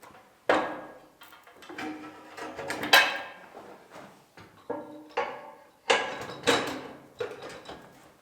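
Steel parts clanking and scraping as a tractor back blade is handled and hitched. There are four hard, ringing clanks: one about half a second in, one around three seconds, and two close together near six seconds.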